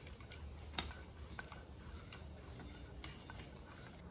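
Hand floor pump being worked on a basketball: faint, irregular clicks, with a short hiss about three seconds in.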